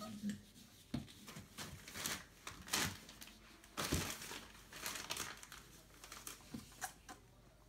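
Irregular crinkling rustles and scuffs, about ten in a row, loudest about three and four seconds in, from Entlebucher puppies moving about.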